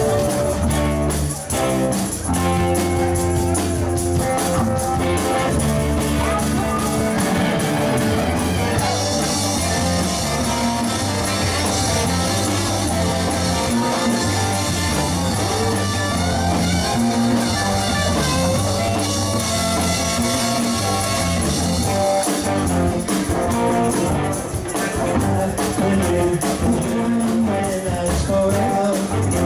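A rock band playing, with guitar to the fore over bass and drums.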